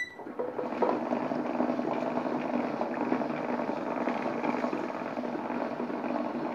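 A short beep, then a table-top wet grinder starts up and runs steadily, its stone rollers turning in the steel drum to grind soaked rice into batter. It comes up to speed within about a second.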